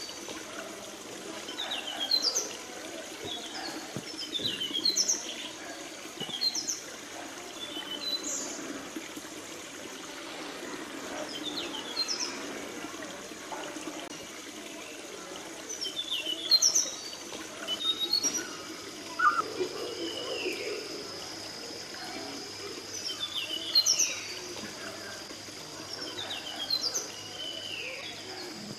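Forest birds calling: short high chirps and swooping whistles, repeating every second or two over a steady background hum. A thin, steady high tone joins a little past halfway.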